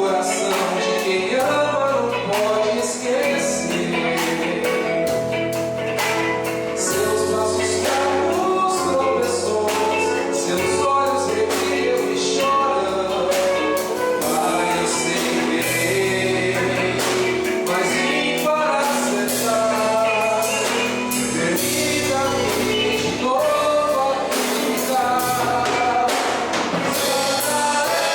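Live worship music: singing over a band with a steady bass line and regular drum beats.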